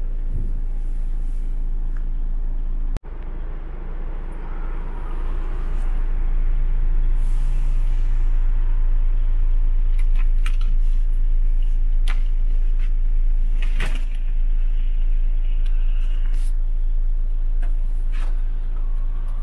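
Scania R490's straight-six diesel idling steadily, heard from inside the cab. A few light clicks and knocks come in the second half, and the sound drops out for an instant about three seconds in.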